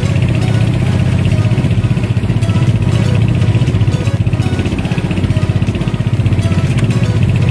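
Motorized outrigger boat's engine running steadily, with a rapid, even pulse.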